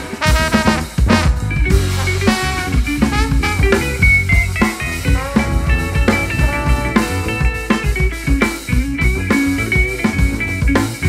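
Live jazz-fusion band playing an instrumental passage on guitar, bass, keyboards, trombone and drum kit.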